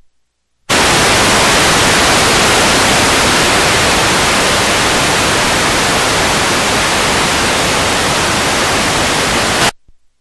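Loud, even static hiss of analog video snow. It cuts in abruptly under a second in and cuts off abruptly just before the end.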